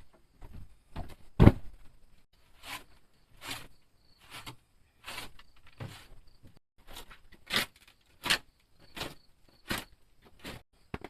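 Footsteps walking at a steady pace on the forest floor, about one crunching step every three quarters of a second, with a faint steady insect hum behind.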